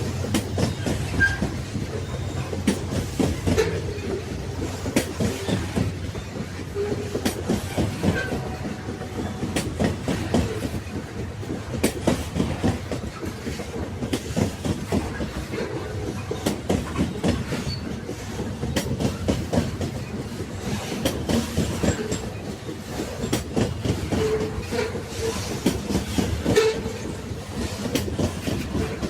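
Railway carriages running on the track: a steady rumble with wheels clicking and knocking over the rail joints.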